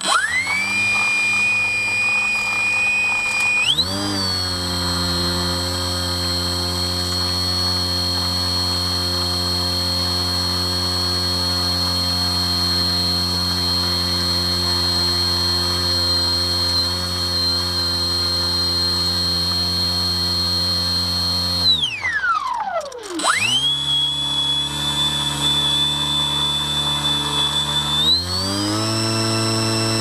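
Radio-controlled float plane's motor and propeller, heard close up from a camera on the plane as it moves on the water. The motor starts with a steady whine, steps up in pitch about four seconds in, drops sharply in pitch and picks back up around twenty-two seconds, then climbs in pitch near the end as the throttle opens.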